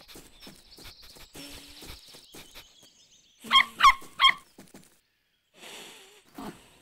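Cartoon puppy sniffing along the ground, then giving three short, loud barks in quick succession.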